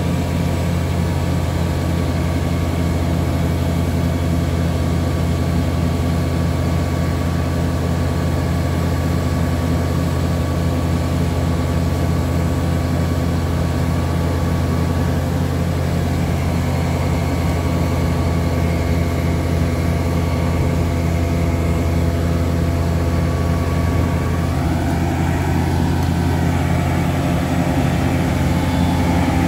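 Western Star vacuum excavation truck with a Weichai diesel engine, running steadily as a loud, even low drone with a stack of steady tones. Its upper tones shift briefly a few seconds before the end.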